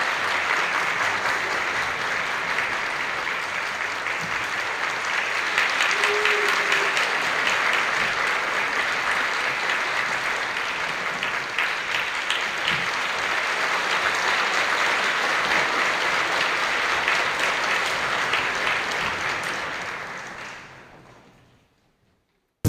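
Theatre audience applauding steadily after a ballet number; the applause fades away near the end.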